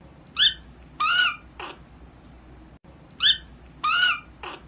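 Prairie dog calling: a short chirp, a longer arched squeal, then a faint falling squeak, and the same three-call sequence again about three seconds in.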